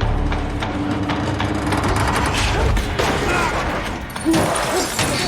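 Film battle sound effects: mechanical clanking and whirring mixed with rapid shot-like impacts.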